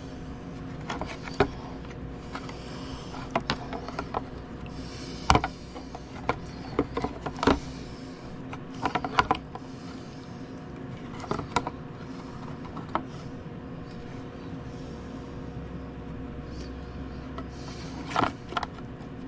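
Scattered clicks and knocks of small metal tool parts being handled and set down, over a steady low hum.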